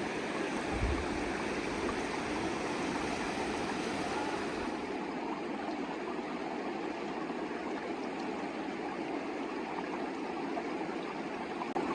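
Fast-flowing mountain river rushing steadily, with a brief low thump about a second in.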